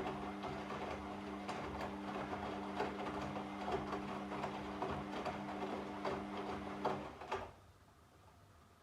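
Washing machine running, a steady motor hum under a rushing wash of sound with scattered clicks and knocks from the turning drum. About seven seconds in the motor cuts off and the drum sound dies away within half a second, leaving near quiet.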